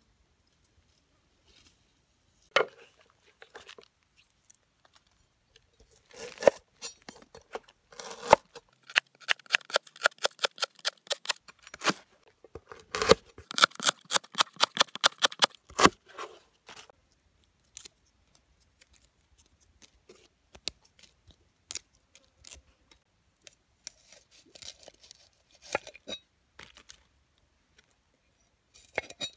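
Knife slicing lemongrass stalks on a wooden cutting board: a run of quick, crisp cuts, several a second, lasting about ten seconds. Scattered single knocks and clicks come before and after it.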